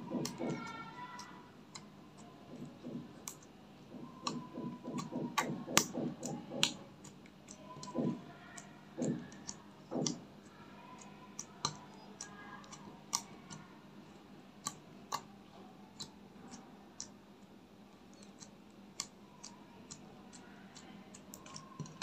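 Fingers pressing and poking glitter slime, making a string of irregular sharp clicks and pops, with a few short low squelches about a third of the way in.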